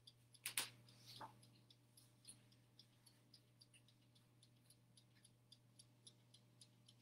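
Faint, even ticking of a toaster oven's dial timer counting down, about three to four ticks a second, over a low steady hum. Two soft knocks come near the start.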